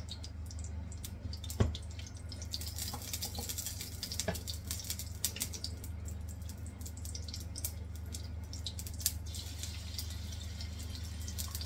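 Hot oil sizzling and crackling in a nonstick frying pan, with chicken strips going in to fry. A steady low hum underneath, and one sharp knock about a second and a half in.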